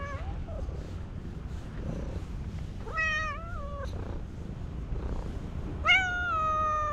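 A stray cat meowing while being stroked: a brief call at the start, then two drawn-out meows of about a second each, the last the loudest. A steady low rumble runs underneath.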